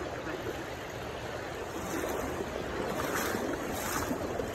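Steady rushing noise of flowing river water, mixed with wind buffeting the phone microphone.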